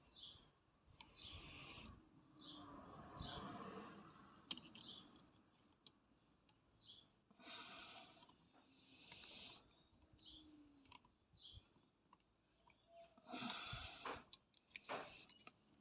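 Faint clicking and metal handling from an old Minimax hand ratchet being worked by hand during reassembly, in short runs with pauses, strongest near the end. Birds chirp faintly in the background.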